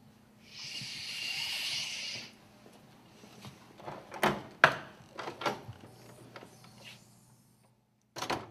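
A hissing sound lasting about a second and a half, then a run of knocks and clicks from a classroom door being shut and locked, the sharpest about halfway through.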